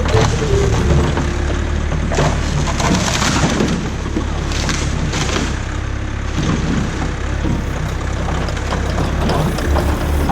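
Backhoe engine running steadily while the bucket crushes a wooden playscape, with wood cracking and splintering several times between about two and five and a half seconds in.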